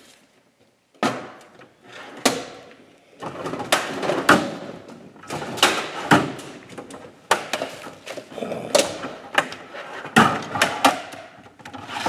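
Irregular knocks, taps and clatter of objects being picked up, moved and set down as painting supplies are rummaged through; almost nothing for the first second, then the knocks come thicker from about three seconds in.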